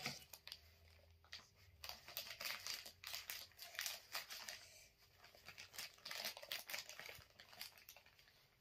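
Plastic mailer bag being torn open and crumpled by hand: irregular crinkling and crackling in several bursts with short pauses between them.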